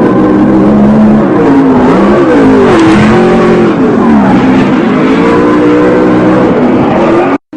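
Car engine revving loudly, its pitch rising and falling over and over, with a rushing noise under it. It cuts off suddenly near the end.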